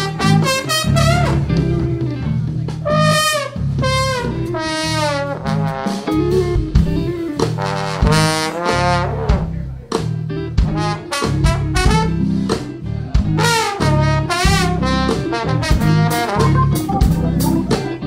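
Live band with a trombone solo out front over electric bass, drums and keys. The trombone plays wavering held notes and quick up-and-down runs.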